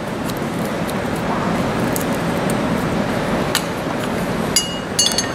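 Steady room hiss with a few faint clicks, then a short cluster of light metallic clinks near the end as the replacement motor and its wired connectors are handled.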